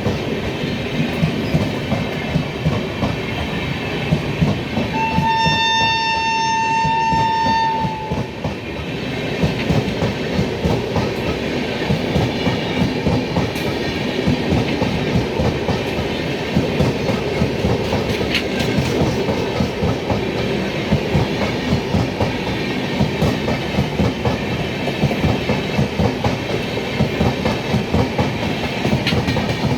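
Indian Railways passenger train (the South Bihar Express) running out of the station, its wheels clattering rapidly over the rail joints. About five seconds in, a single steady horn blast sounds for about three seconds.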